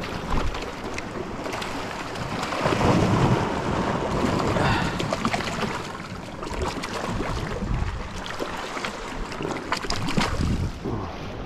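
Wind buffeting the microphone over the sound of sea waves, a steady rushing noise that swells for a couple of seconds.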